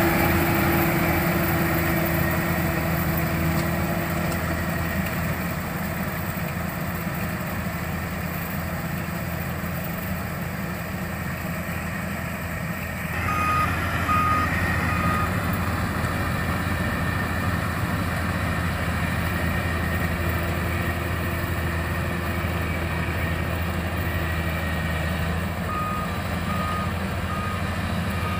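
Combine harvester's engine running steadily while harvesting rice, growing a little louder about halfway. A reversing alarm gives a short run of beeps about halfway and again near the end.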